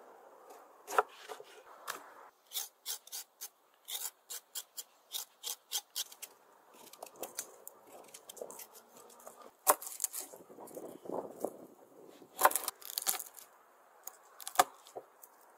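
Chef's knife cutting a lemon and then garlic cloves on a wooden cutting board: a run of quick cutting strokes, about three a second, then scattered sharp knocks of the blade on the board with some scraping.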